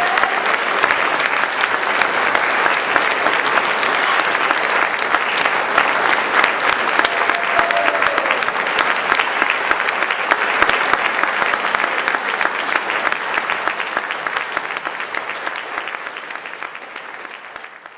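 Audience applause, dense and sustained, fading out near the end.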